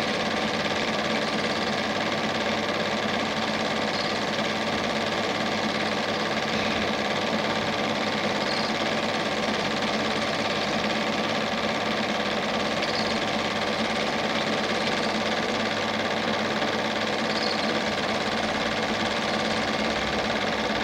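Standard 8 cine projector running steadily, a whirring mechanical drone with a faint tick about every four and a half seconds; the film itself is silent, so this is the projector heard during the transfer, not the boat.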